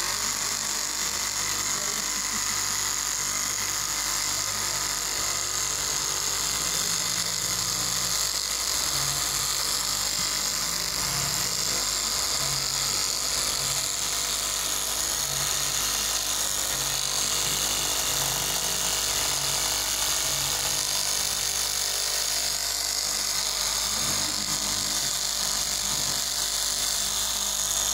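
KM electric straight-knife cloth cutting machine running steadily as its upright blade cuts through a thick stack of layered fabric, giving a constant high-pitched motor whine.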